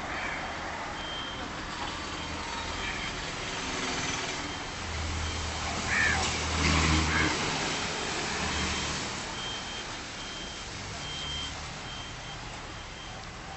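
Outdoor background noise with a vehicle engine rumbling nearby, loudest about halfway through, and faint short high beeps now and then.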